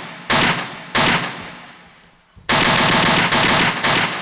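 A run of loud bangs, each followed by a long ringing decay: two in the first second, then after a pause a quicker cluster of three close together.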